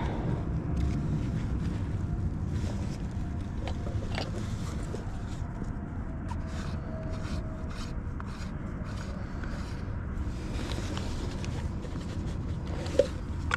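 A backpack being handled on the rider's lap: cloth rustling and scraping with scattered small clicks, over a steady low rumble. One sharper click comes near the end.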